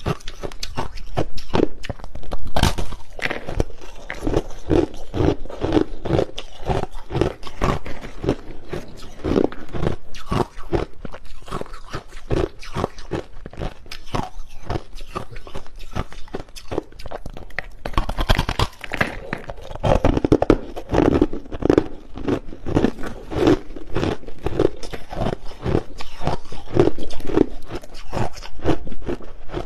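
A person biting and chewing hard crushed ice close to the microphone: dense, irregular crunches, several a second, continuing without a break.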